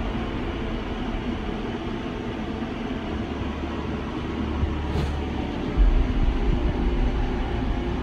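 Dark, droning background music with a deep sustained bass that changes note twice.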